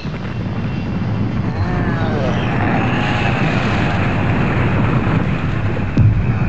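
Sound effect of a large cargo plane diving in, its engines growing louder over the first couple of seconds and then holding. A sudden crash impact comes about six seconds in: the plane hitting its target.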